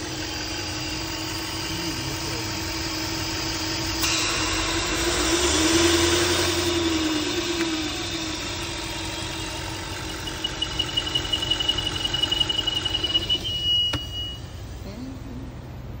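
Audi RS5 engine idling with a whistle coming from the PCV valve: a steady hum under a hiss. About five seconds in, the hum swells and bends up and back down in pitch, and later a thin high-pitched whistle pulses for a few seconds.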